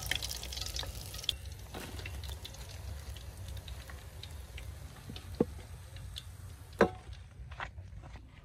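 Water pouring that tails off in the first second, then scattered drips and light clicks, with two sharper knocks, one a little past the middle and one near the end.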